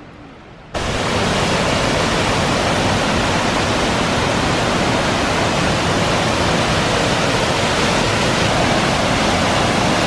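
Waterfall: a steady rush of falling water that cuts in suddenly about a second in and holds at an even, loud level.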